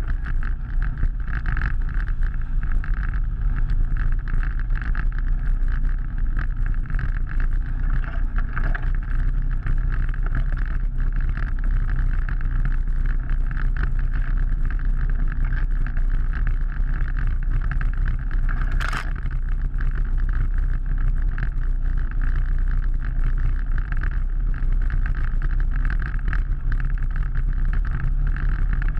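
Off-road vehicle engine running steadily as it drives along a flooded, muddy trail, with one sharp knock about two-thirds of the way through.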